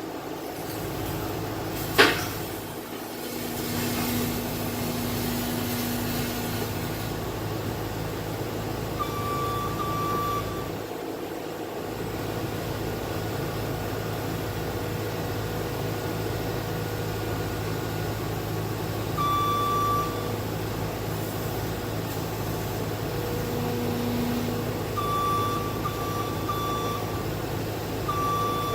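Heavy-equipment diesel engine running steadily, with short warning beeps from a travel or backup alarm coming at irregular intervals, singly and in runs. A sharp knock sounds about two seconds in.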